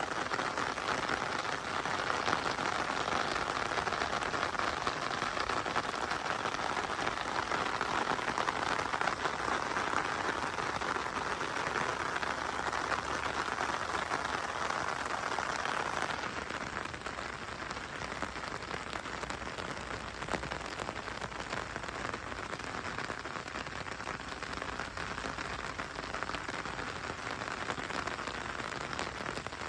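Steady rainfall, a dense even hiss of drops. About sixteen seconds in it turns a little quieter and duller.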